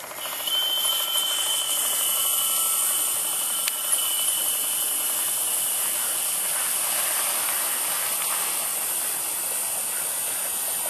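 Steam hissing steadily from a live-steam model boat's steam plant, with a thin, steady high tone over the hiss. The sound starts suddenly about half a second in.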